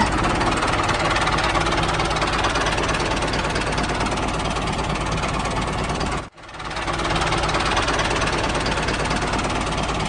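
Tractor engine running steadily. It drops out for a moment about six seconds in, then runs on.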